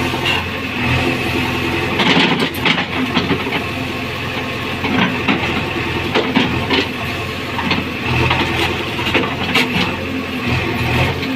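JCB 3DX backhoe loader's diesel engine running steadily, with several sharp metallic clanks from the machine at work.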